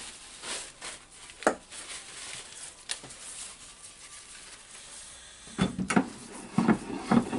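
Paper rustling and light knocks from a cordless drill being handled while wrapped in paper, with an Allen key set in its chuck. A few scattered clicks come early; after a quiet stretch, a quick run of knocks and rattles starts near the end.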